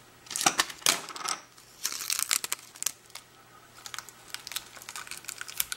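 Kapton tape being pulled and pressed around a fiberglass and silica insulation wrap: irregular crackles in several short clusters, with quieter gaps between them.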